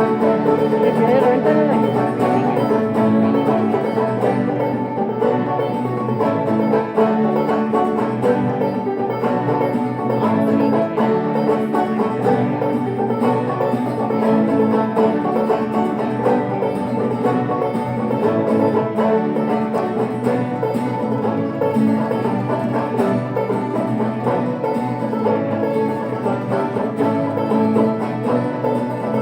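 Live instrumental banjo and mandolin music: rapid plucked notes played continuously in a bluegrass-style tune.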